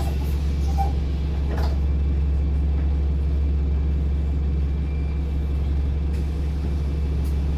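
Bus engine running steadily with a low drone, heard from inside the passenger cabin.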